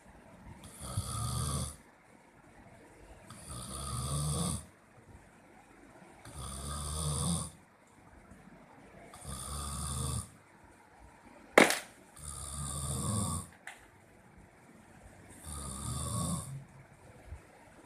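A person snoring in a steady rhythm: six snores, each about a second long and about three seconds apart, with quiet breaths between. One sharp click about two-thirds of the way through, louder than the snores, and a fainter click shortly after.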